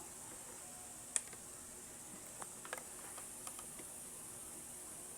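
A few faint, scattered clicks and taps from handling a plastic glue bottle, with one sharper click about a second in, over a steady faint hiss.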